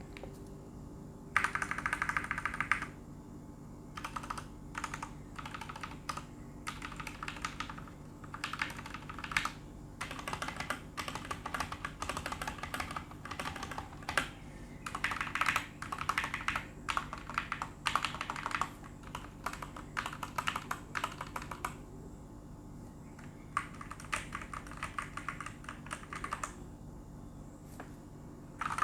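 Typing on an FLesports F11 tenkeyless mechanical keyboard with Outemu Black linear switches and ABS keycaps: bursts of rapid keystrokes, each a few seconds long, with short pauses between them.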